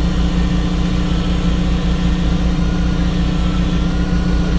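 Fishing boat's engine running steadily with an even, rapid low throb.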